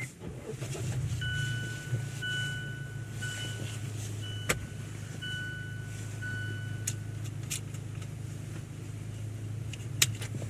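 Steady low hum of a car idling, heard from inside the cabin, with an electronic warning chime beeping in a broken pattern for several seconds. A few sharp clicks come in between.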